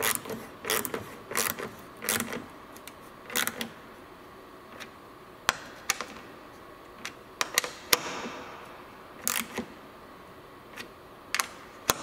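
Hand ratchet with a 10 mm socket clicking in short bursts as it tightens the tail light's mounting bolts, with a few single sharp clicks in between.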